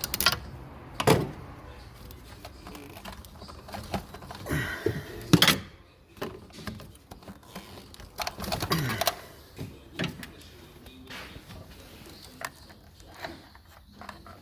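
Scattered clunks, clicks and scrapes of hand tools and engine parts being handled while the rocker cover is worked loose, with the loudest knocks just after the start, about a second in, and about five seconds in.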